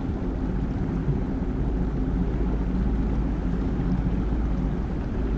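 Fishing boat's motor running steadily as the boat travels, a low rumble with wind and water rushing over it.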